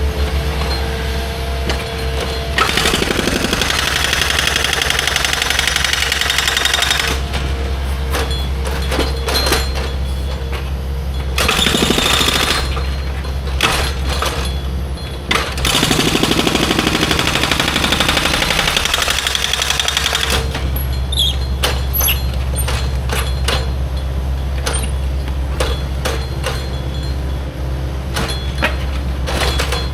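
Heavy machinery running steadily with a low engine drone, three stretches of louder rushing noise and many sharp clanks throughout.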